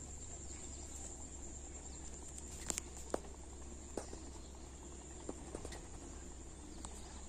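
Insects trilling in a steady high-pitched drone, with a few sharp clicks, the loudest near the middle.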